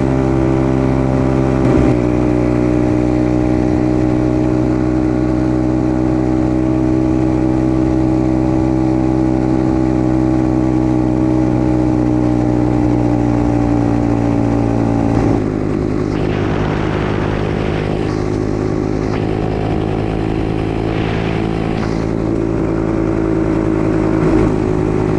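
125cc dirt bike engine running steadily under way. Its pitch drops suddenly about two seconds in and again about fifteen seconds in.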